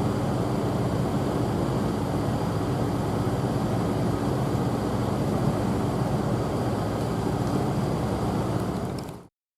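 Steady traffic and road noise, a dull even rumble that fades out about nine seconds in.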